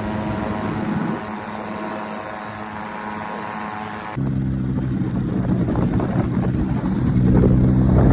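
Off-road SUV engine running steadily. About four seconds in, the sound switches abruptly to a louder, lower-pitched engine working hard, building to its loudest near the end.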